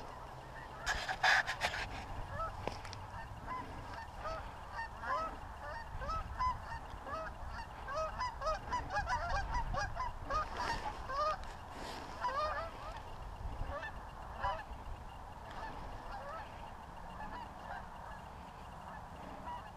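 A flock of wild geese flying high overhead, many birds honking at once in short rising calls that are thickest in the middle and thin out near the end. The flock is passing over without coming down to land. There is a short burst of noise about a second in.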